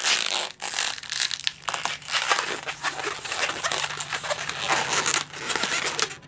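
Inflated 260 Qualitex latex modelling balloon being squeezed and twisted by hand into a small bubble: irregular rubbery rubbing and squeaking of the latex under the fingers.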